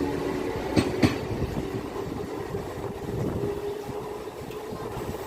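A passing train's wheels clacking over rail joints, two sharp clacks about a second in, then a steady rumble that slowly fades as the train moves away.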